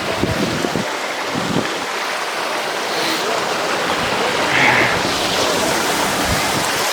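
Steady rushing roar of falling water, with wind buffeting the microphone in low thumps during the first second or two.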